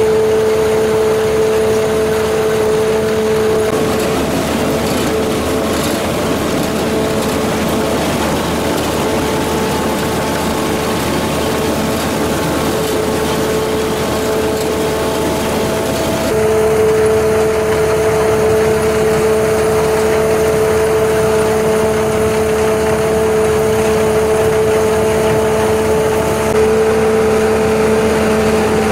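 Kaset Phattana CH250S rice combine harvester running steadily while cutting and threshing rice, its engine and threshing machinery giving a loud, even hum. From about four seconds in to about sixteen seconds the hum is masked by a rougher, noisier rush, then returns.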